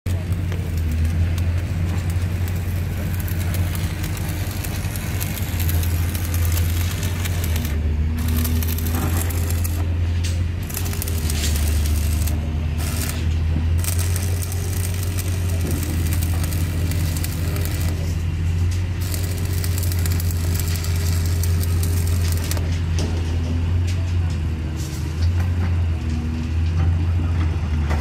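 Arc welding on the steel rebar of a pile cage, crackling and sizzling in spells that stop and start several times. Under it runs a steady low engine drone from site machinery.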